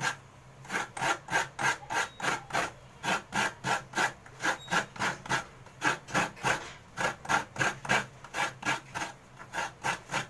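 A halved coconut being scraped against a coconut grater blade, its flesh rasped out in quick even strokes of about three a second, with a brief pause about two-thirds of the way through.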